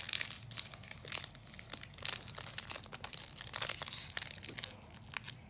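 Blind-box toy packaging crinkling and crackling in hands in a run of irregular crackles, as it is worked at to get it open.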